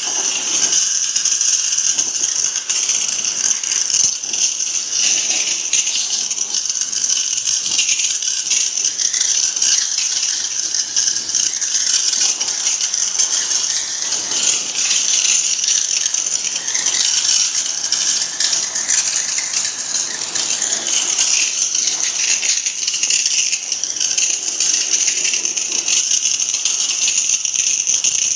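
Pressure washer's water jet spraying onto an air conditioner unit during cleaning: a steady, loud hiss of water that does not let up.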